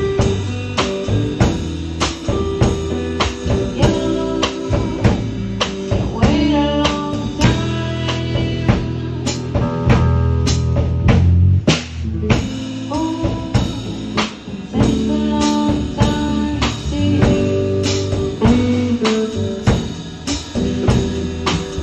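A band playing a blues-style number: drum kit keeping a steady beat, about two hits a second, under guitar and other sustained instrument notes.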